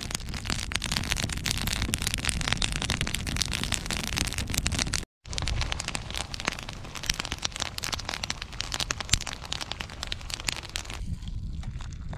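Small split-wood fire crackling and popping, a dense run of fast sharp snaps, with a brief dead cut about five seconds in. Near the end the crackle thins out to a quieter sound.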